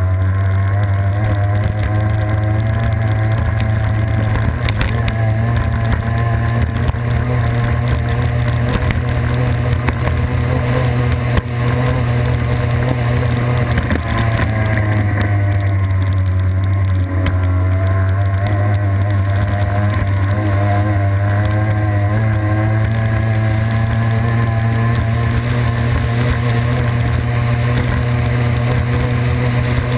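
Race boat's engine running hard at a steady high speed, its pitch wavering slightly, over the rush of water and wind at the onboard camera.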